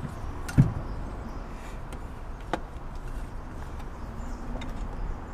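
Handling knocks as a new diesel fuel filter canister is lifted aside and set down. One sharp knock comes about half a second in, and a fainter click about two and a half seconds in, over a low, steady background rumble.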